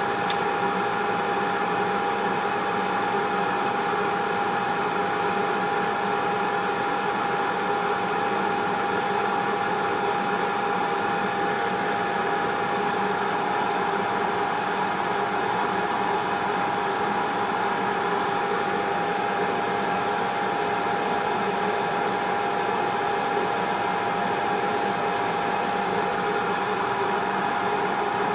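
BGA rework station running its heating profile: a steady rush of blowing air with a constant mid-pitched hum, as the board is heated to melt the solder under the HDMI port.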